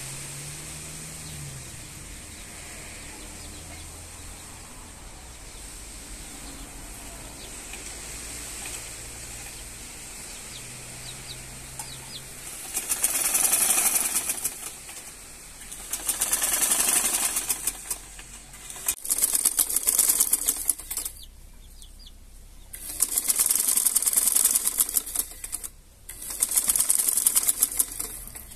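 Janome sewing machine stitching fabric in five short runs of a second or two each, a fast rattle of the needle mechanism, starting about halfway through. Before that only a steady hiss.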